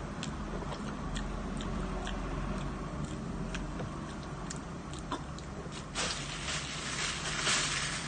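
A person chewing a soft piece of sardine, with small wet clicks of the mouth. About six seconds in, a louder hissing rustle lasts a couple of seconds.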